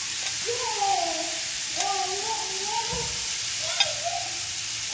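Vegetables sizzling in a hot cast iron grill pan, a steady hiss with a few sharp clicks. A high voice rises and falls in the background for a couple of seconds.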